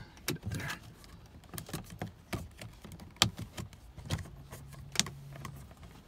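Plastic clicks and knocks as a headlight switch assembly is fumbled and pushed back into its clip-in opening in a car dashboard, the loudest click about three seconds in. A faint low hum runs for about a second and a half near the end.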